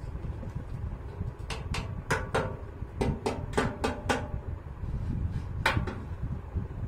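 Metal parts of a stainless steel gas stove being handled, knocking and clinking with a short ring: a quick run of about nine clinks, then one more near the end, over a low rumble of handling noise.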